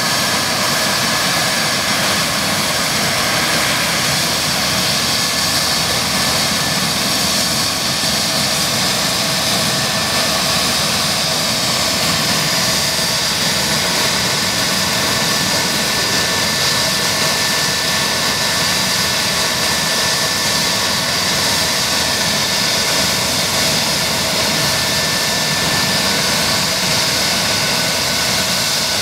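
Eurocopter EC135-P2 helicopter's twin Pratt & Whitney Canada PW206B2 turbine engines running at a steady pitch: a constant high whine over dense, even noise.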